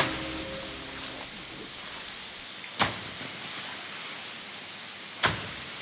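Steady hiss of artificial stage rain falling. Three sharp knocks break it: one at the start, one about three seconds in, one near the end. A held music chord dies away in the first second.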